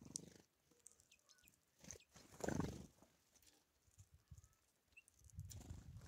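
Wings of small songbirds (bullfinches and great tits) fluttering in short bursts as they land on and take off from a tray feeder. There are three bursts, the loudest about two and a half seconds in, with a few faint high chirps between them.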